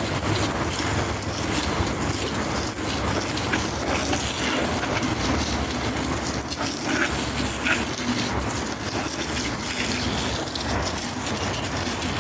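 Hose nozzle on its jet setting spraying a steady stream of water.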